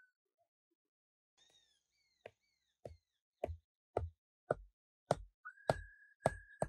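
A run of about nine dull knocks, roughly two a second, growing louder, like repeated blows on a solid material. A steady whistle-like tone comes in over the last second.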